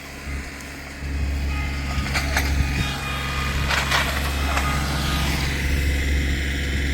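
A vehicle engine running, a low steady rumble that gets louder about a second in, with a few short knocks or rattles over it.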